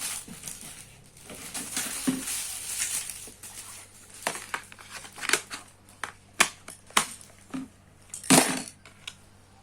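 Plastic parts of a baby walker being handled: rustling and crinkling for a couple of seconds, then a run of sharp plastic clicks and knocks, with one louder bang near the end.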